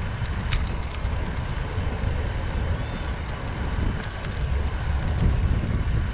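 Wind buffeting the microphone of a camera on a moving bicycle: a steady, gusty low rumble. There is one sharp click about half a second in.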